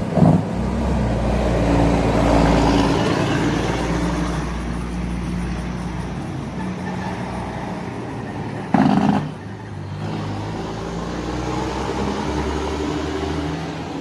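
Heavy diesel engine of a semi-truck towing a flatbed trailer, loudest in the first few seconds as it rounds the bend, then easing off as it drives away, with car traffic following. Two short loud bursts cut through it, one right at the start and one about nine seconds in.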